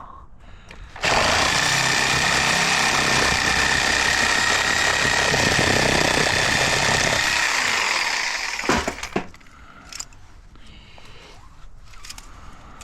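A power tool cutting scrap metal: it starts suddenly about a second in, runs steadily for about seven seconds and winds down, followed by a few sharp knocks.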